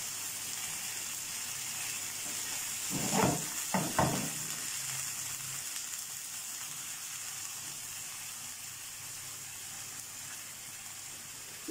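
Skewered marinated chicken tikka sizzling steadily in shallow oil in a frying pan. A few brief knocks about three to four seconds in come as the skewers are turned by hand.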